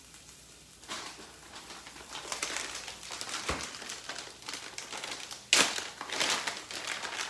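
Irregular crinkling and crackling as shredded cheese is handled and added to a hot frying pan, with a sudden louder burst about five and a half seconds in.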